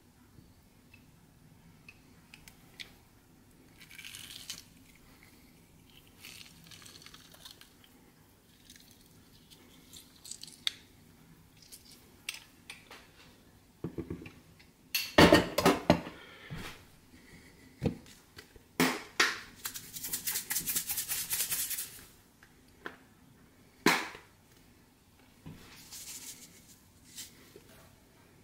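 Off-camera kitchen handling sounds: scattered clicks and knocks, a loud clatter lasting a second or two about halfway through, then a fast run of even ticks for about three seconds.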